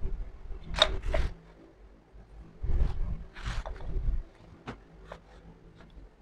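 Painted glass jars being handled and shifted on a plastic-covered table: scrapes about a second in and again midway, with low rumble under them and a few light clicks after.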